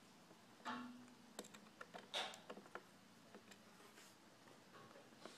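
Faint, scattered small clicks and short scrapes of a knife tip working on plastic around the tiny bezel screws of a laptop screen.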